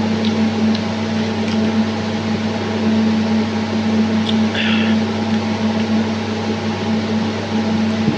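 Steady mechanical hum of a running fan or similar motor, with a short rustling or scraping sound about four and a half seconds in.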